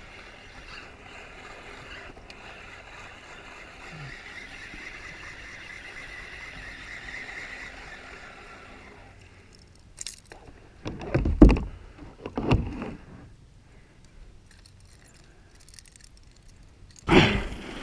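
Kayak on the water: a steady wash of water, then a few loud knocks about ten to thirteen seconds in.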